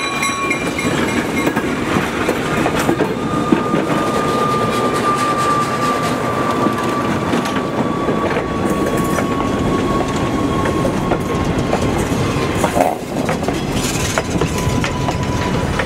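Freight train of old boxcars rolling past at close range: a steady rumble of wheels on the rails with scattered clicks. From a few seconds in, a thin high whine runs under it, slowly dropping in pitch.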